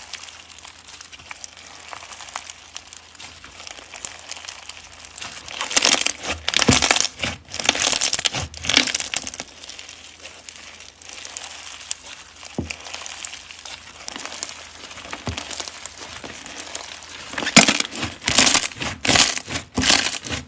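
Slime being squeezed and pressed by hand, giving a continuous crackling, crinkling sound, with louder bursts of crackles about six to nine seconds in and again near the end.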